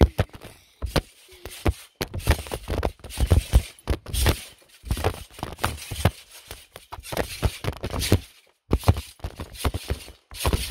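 A phone bouncing on a trampoline: a fast, irregular run of thumps and knocks with scraping and rubbing as it is jolted against the mat and flung about.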